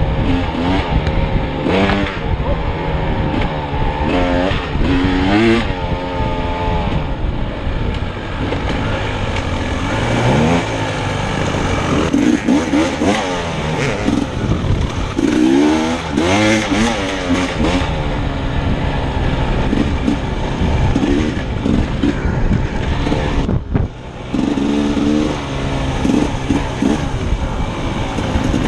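Dirt bike engine revving up and down as it climbs through the gears and backs off on a trail, heard close up from a helmet-mounted camera. Near the end it drops away for a moment before pulling again.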